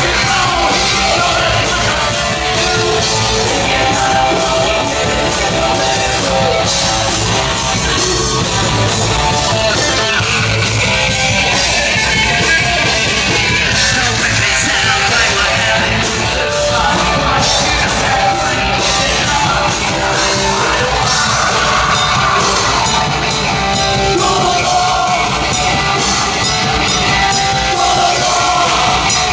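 Live punk/metal band playing loud, distorted guitars, bass and pounding drums, with yelled vocals over the top. Dense and unbroken throughout.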